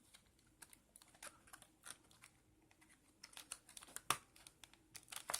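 Faint, irregular clicks and light rustles of the earphones' packaging being handled as the contents are taken out of the box, growing a little louder and busier in the second half.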